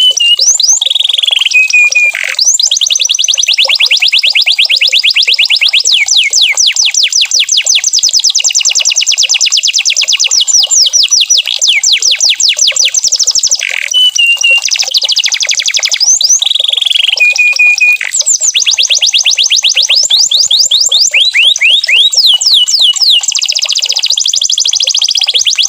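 Domestic canary singing a long, continuous song of rapid trills made of quickly repeated falling notes, broken by a few held whistled notes about a second in and again around the middle.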